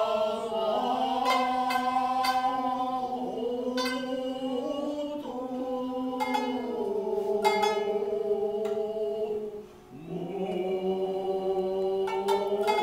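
Utazawa song: several voices sing long, drawn-out notes whose pitch bends slowly, with sparse plucked shamisen notes. The voices break off briefly about three-quarters of the way through, then take up a new held note.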